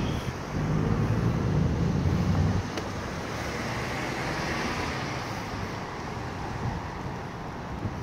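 City street traffic noise: a low rumble, loudest in the first two and a half seconds, cuts off suddenly and gives way to a steadier wash of road noise.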